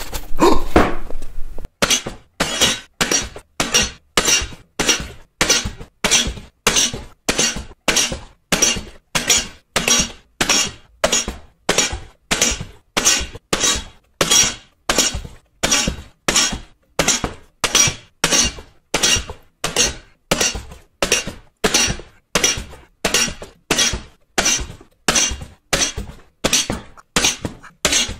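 A long run of sharp crashing impacts at an even pace, about three every two seconds, each dying away quickly.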